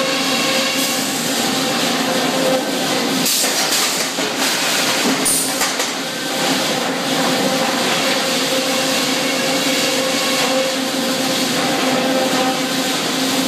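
Sawmill head rig running: the circular headsaw and drive give a steady loud hum while the shotgun-feed carriage runs the log along its track, with a few brief clatters about three and five seconds in.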